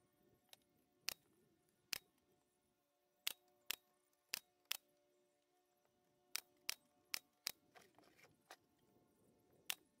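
Pneumatic nail gun firing about eleven nails through a wooden birdhouse roof panel into the sides. Each shot is a sharp crack, less than a second apart and some in quick pairs, with a longer gap about halfway through.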